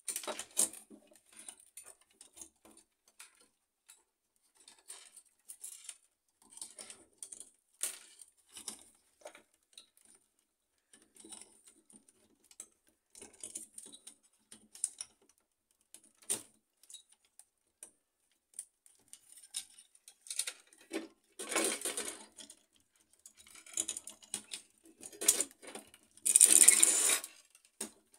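Plastic and metal parts of an HP LaserJet M607 fuser assembly clicking and knocking as it is taken apart by hand. There are two longer, louder stretches of rubbing noise in the last third, the second the loudest.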